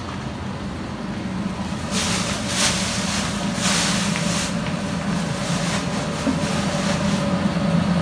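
A steady low motor-like hum, with bursts of hissing noise about two to four and a half seconds in.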